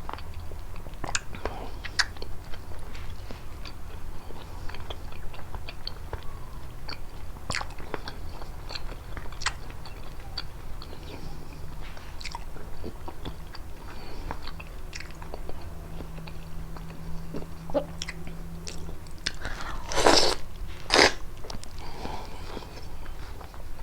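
Close-miked eating of prickly pear fruit: wet chewing and biting with many small scattered crunches, and two louder crunches near the end.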